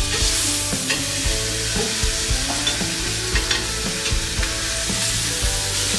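Bone-in beef rib steaks sizzling steadily on a hot cast iron grill pan as they are flipped with metal tongs, with several short clicks and knocks of the tongs and meat against the pan.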